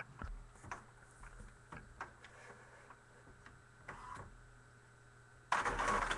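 Irregular light clicks from a computer keyboard and mouse, about two a second, with a louder rustling noise from about five and a half seconds in.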